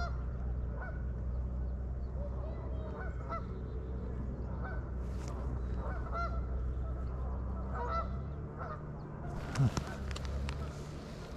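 Geese honking repeatedly, with a steady low hum underneath that stops about eight seconds in, followed near the end by a rustling noise.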